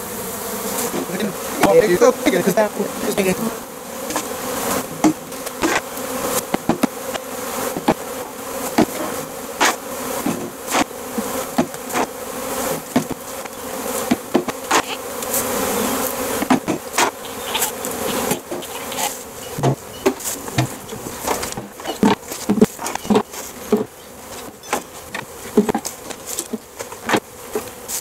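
Honey bees buzzing in a dense cloud, with repeated sharp wooden knocks as a screen frame covered in clustered bees is banged against a hive box to shake them off into it.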